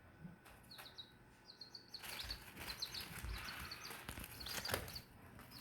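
Baby chicks peeping faintly: short, high peeps scattered through, with a soft rustling noise in the middle.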